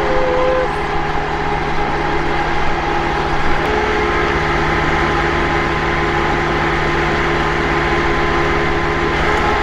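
Marine travel lift's engine and hydraulics running steadily, a loud drone with a held whine, as it lowers a sailboat in slings into the water. The whine shifts slightly in pitch about four seconds in.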